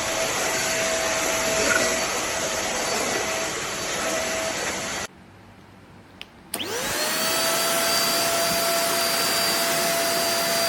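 Deerma DX700 stick vacuum cleaner running with a steady whine over a loud airflow hiss. It cuts off suddenly about five seconds in. After a click, the motor starts again about a second and a half later, its whine rising quickly as it spins up, then holds steady at full speed.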